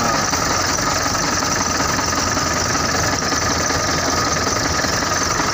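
Freshly rebuilt diesel engine of a PS 125 truck running steadily at idle with a diesel knock, its injection pump just set.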